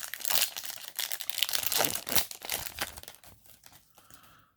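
Foil booster-pack wrapper crinkling and tearing as a trading-card pack is opened, a dense run of crackles that thins out and fades after about three seconds.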